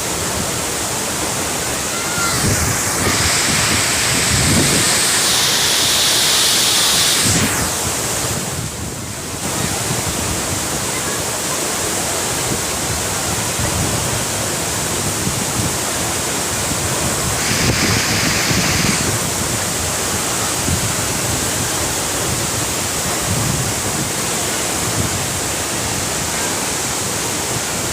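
Steady rush of a heavy waterfall up close, with wind and spray noise on the microphone; the sound dips briefly about nine seconds in.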